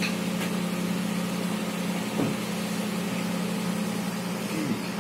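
Steady low hum over a constant hiss from running kitchen equipment.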